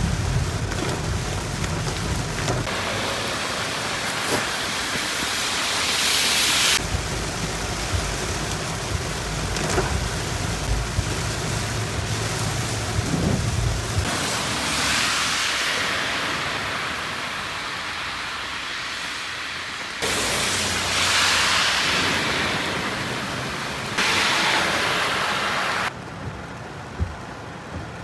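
Torrential rain pouring down hard, a steady loud rush. The sound changes abruptly several times, a few seconds apart.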